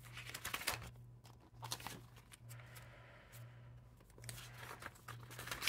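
Paper pages and inserts in a ring planner being handled and turned: faint rustling with scattered light taps, over a steady low hum.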